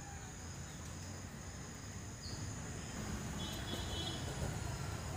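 Faint, steady high-pitched chirring of insects, over a low rumble.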